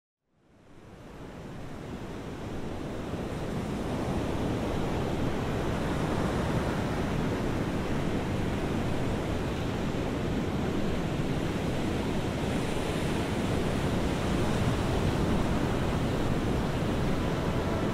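Storm surf breaking and washing up a sandy beach, heard as a steady, unbroken rush of waves that fades in over the first couple of seconds.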